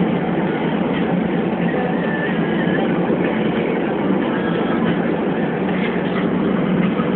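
Steady road and engine noise inside a moving car's cabin, the tyres running on a wet road.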